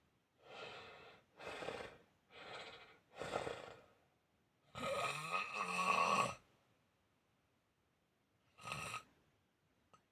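A sleeping pet snoring: four snores in quick succession, then a longer, louder one, and after a pause of about two seconds a single short snore near the end. The uploader takes the snoring for a sign of apnea.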